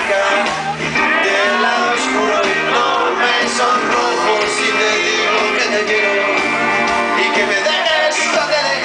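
Live rock band playing loudly on electric guitars, drums and keyboard, heard from within the audience.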